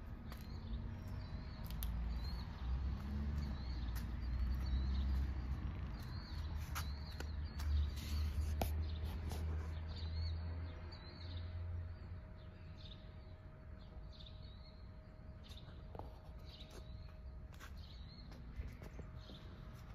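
Small birds chirping repeatedly in a dawn chorus, over a low rumble that fades out about twelve seconds in. A faint steady hum comes in near the middle.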